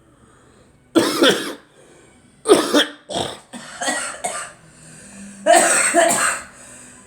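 A girl coughing in a fit of separate short coughs: one about a second in, a quick string of four, then two more close together near the end.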